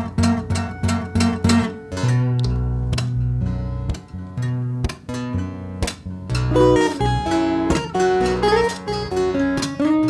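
Solo steel-string acoustic guitar played fingerstyle. A quick repeated plucked figure gives way about two seconds in to deep bass notes ringing under a picked melody, and a few notes slide in pitch in the second half.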